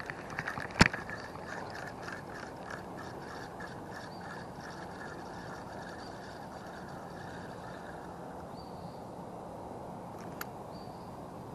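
Spinning fishing reel: a sharp click about a second in, then the reel being cranked in, ticking about three times a second for several seconds, and another small click near the end.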